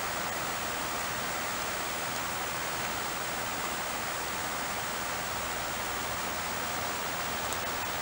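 A steady, even rushing noise with no gusts or breaks.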